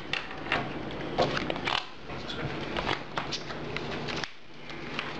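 Trading cards being handled on a tabletop during play: a scattered run of short clicks, taps and slides as cards are placed and moved.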